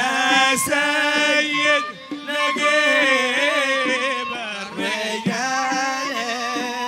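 Hadhrami zurbadi song: a man singing a qasida in a bending, ornamented line over steady held instrument tones.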